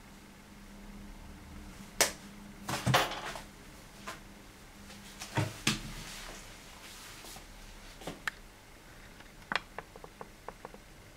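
Scattered handling knocks and clicks from the camera being moved and adjusted: two loud knocks about two to three seconds in, a few more around the middle, then a quick run of small ticks near the end as the view swings to the spider.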